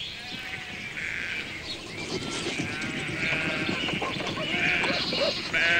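A flock of sheep bleating, several calls one after another, the loudest near the end.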